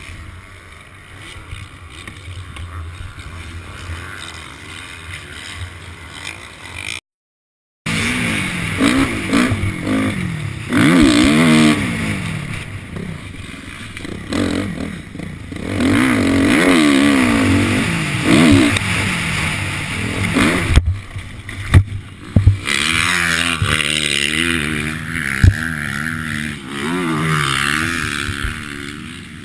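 Motocross bike engine revving up and down again and again as it is ridden hard, with a brief cut to silence about seven seconds in. A few sharp knocks come later on as the bike goes down in a crash.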